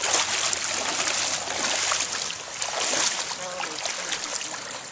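Shallow river water splashing and rushing, with many quick splashes over the first three seconds that then ease off.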